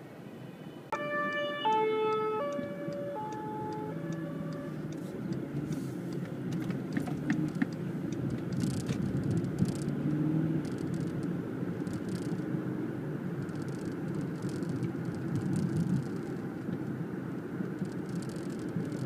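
An ambulance's German two-tone siren (Martinshorn) starts about a second in and alternates between a high and a low note for about four seconds, then stops. Steady car and road noise follows.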